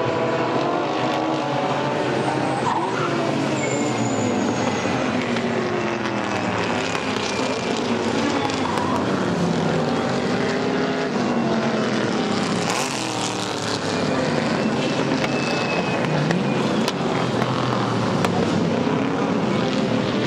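Several historic GT race cars, among them the Ford V8-engined TVR Griffith 400, passing at racing speed, their engines revving up and down through gear changes as one car follows another.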